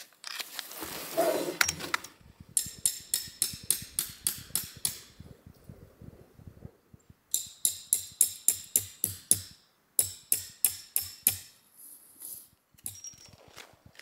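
Three quick runs of sharp hammer blows on a metal tent peg, about four or five strikes a second, each with a short metallic ring. Before them, brief rustling of tarp fabric being handled.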